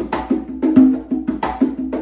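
Congas played by hand in a salsa rhythm: ringing open tones and sharp slaps, with a strong stroke about every three-quarters of a second and lighter strokes in between.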